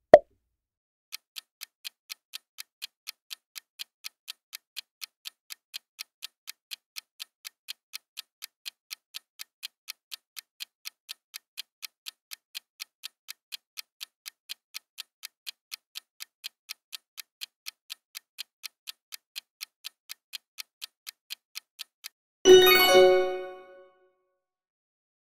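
Countdown-timer sound effect: a clock ticking evenly at about three ticks a second while the answer time runs. It stops near the end, and a loud, bright chime with several tones rings out and fades, marking the answer reveal. A short pop is heard right at the start as the last answer choice appears.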